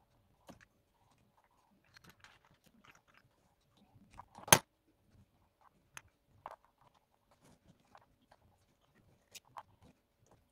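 Miniature dollhouse dishes and kitchen pieces clicking and tapping as they are picked up and set down in the cupboards, with one sharp, much louder click about four and a half seconds in and a few lighter ones later.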